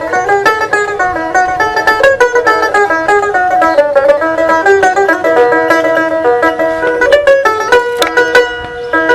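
A dotara, the Bengali long-necked plucked lute, played in a quick run of plucked melody notes, each note ringing briefly.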